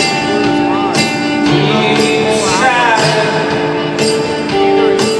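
Live band music: sustained instrumental chords with a wavering melody line over them and a sharp percussion hit about once a second.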